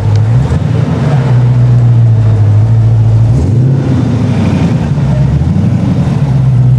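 Mosler MT900's V8 engine running at low revs with a steady deep note as the car creeps along. The revs shift briefly about half a second in, and again around three and a half seconds in, where they rise and fall back.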